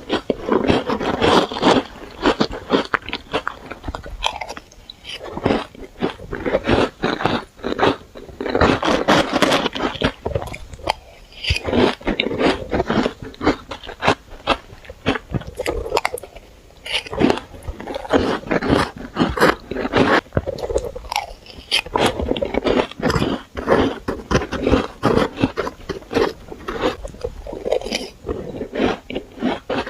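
Close-miked biting and chewing of powdery shaved ice: dense, irregular crunching and crackling in clusters of bites, with short lulls between them.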